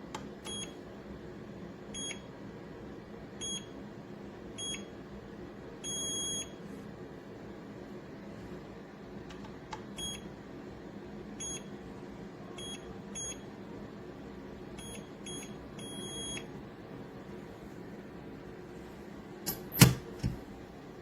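Electronic keypad on a MOLICAR biometric handgun safe beeping as its buttons are pressed: a string of short high beeps, with two longer tones about six and sixteen seconds in. Near the end comes a loud clunk from the safe.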